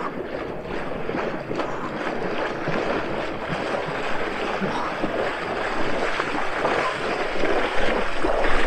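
A person wading through shallow lake water, legs splashing steadily and getting louder as he comes closer.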